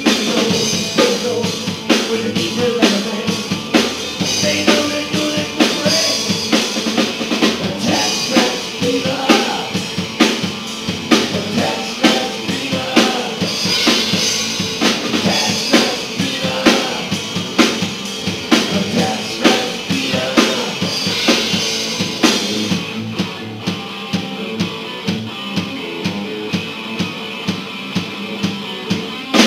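Live rock band playing: electric guitar and electric bass over a drum kit that keeps a steady beat of about two hits a second.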